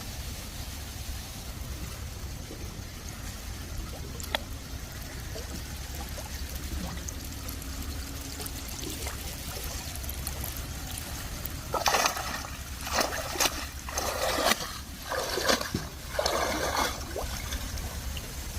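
Water trickling and dribbling over a steady low rumble, then a run of about five loud splashes in the last few seconds, as a fishing net is worked through the water.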